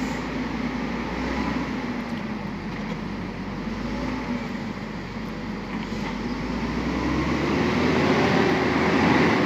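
Engine of a wheeled guardrail post-driving machine running steadily as it drives slowly along the road, then revving up with a rising note near the end.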